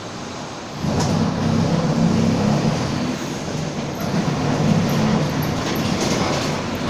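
Mercedes-Benz OF-1722M bus's diesel engine and drivetrain under way, getting clearly louder about a second in as it pulls harder, with a low drone from the growling differential.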